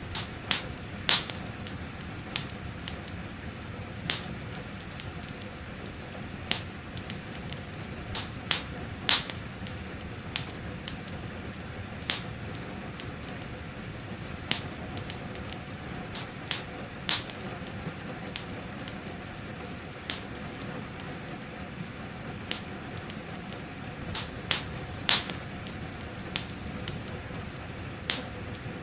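Wood fire crackling in a fireplace, with sharp irregular pops every second or two over a steady hiss of gentle rain.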